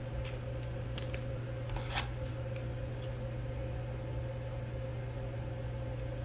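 Trading cards and plastic card holders being handled: a few light clicks and a short swish about two seconds in, over a steady low hum.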